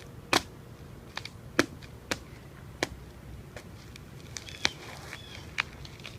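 Ice cracking: about ten sharp, separate cracks and pings at irregular intervals, the loudest near the start and about a second and a half in.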